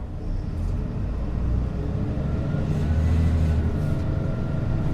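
Inside a local bus: the engine's low rumble with a faint steady whine above it, swelling a little about three seconds in.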